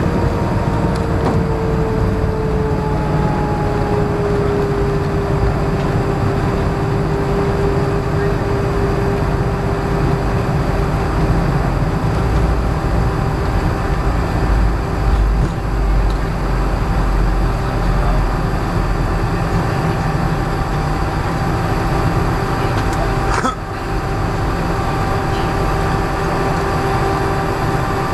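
Cabin noise of a BAe Avro RJ100 airliner on its landing roll: a steady low rumble from the wheels and airframe, with the Lycoming LF507 turbofans' whine sinking a little over the first few seconds and then holding steady as the engines settle toward idle.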